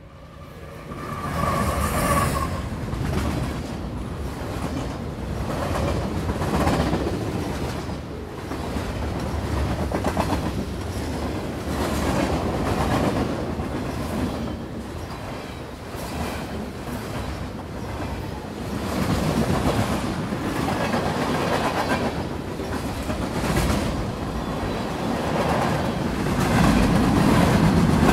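CN diesel-hauled freight train passing at close range: the locomotive's sound rises quickly over the first two seconds, then the string of freight cars rolls by with a continuous rumble and the rhythmic clickety-clack of wheels crossing rail joints.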